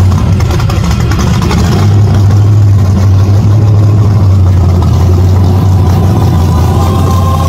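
A hot rod's engine running with a deep, steady rumble.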